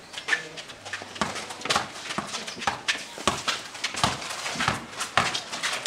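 Basketball dribbled on a concrete court: a run of sharp, irregular bounces, several a second.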